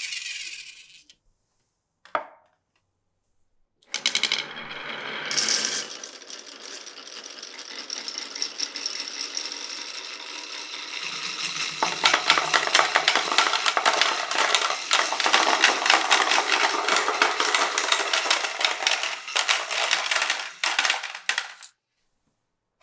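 Glass marbles rolling and clattering through a wooden marble run. A single click comes about two seconds in. From about four seconds there is a continuous rolling rattle full of quick clicks, which grows louder at about twelve seconds and cuts off suddenly near the end.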